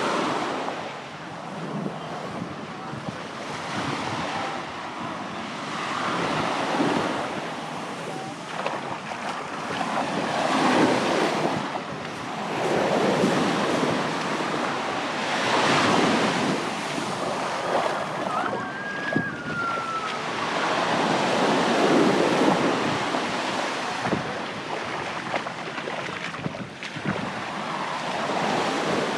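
Sea waves breaking on the shore and washing back, the surf rising and falling in surges every few seconds, with wind buffeting the microphone.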